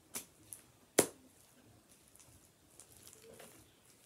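Foam bead slime squeezed and slapped between the hands: a few sharp pops and snaps in the first second, the loudest about a second in, then faint crackling as it is kneaded.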